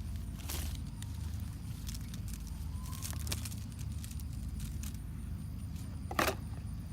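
Steady low mechanical rumble with scattered small clicks and rustles of handling, and two short louder rustling bursts, one about half a second in and one near the end.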